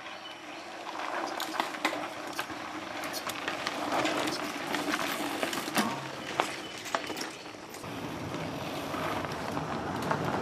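Mountain bikes climbing a dirt trail: knobby tyres crunching over dirt and loose stones, with scattered sharp clicks and rattles. It swells as a rider passes close by and rises again near the end as the next rider comes up.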